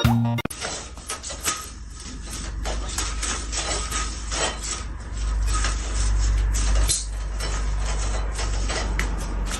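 Irregular light clattering and knocking, like small hard objects striking one another, over a steady low rumble; organ music cuts off about half a second in.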